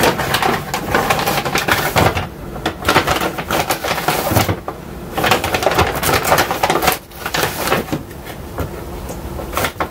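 Bag of ground filter coffee crinkling and rustling in irregular bursts as it is handled and opened, with a few short lulls between.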